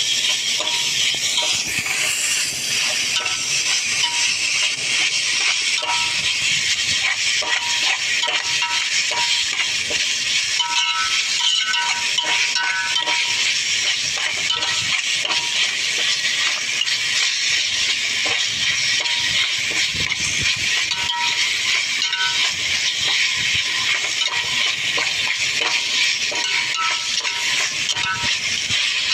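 Veg noodles stir-fried in a steel wok over a gas burner: a steady loud hiss of frying, with a metal spatula scraping and clinking against the wok in short, high metallic scrapes.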